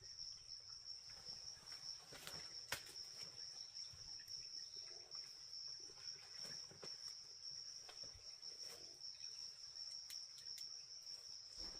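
Insects trilling in one steady, unbroken high tone, with a few faint clicks and knocks scattered through.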